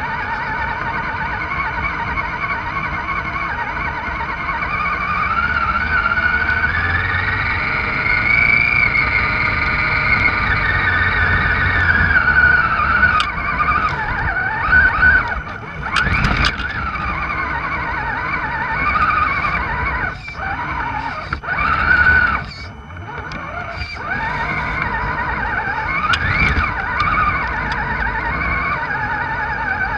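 RC scale crawler's electric motor and geared drivetrain whining, the pitch rising and falling with the throttle. The whine cuts out briefly a few times near the middle, and there is a knock about halfway through as the truck bumps over the ground.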